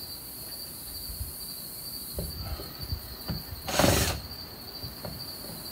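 Insects trilling steadily in the background, with a few light knocks of hand work on the wooden window trim and, about four seconds in, one short harsh scrape as the trim is worked loose.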